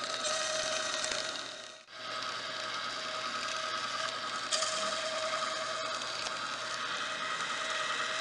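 Bolex magnetic film striper running, drawing Super 8 film through its rollers as it lays down a magnetic sound stripe: a steady mechanical whirr with a constant whine. The sound sags away almost two seconds in, then comes straight back, with a couple of faint ticks later on.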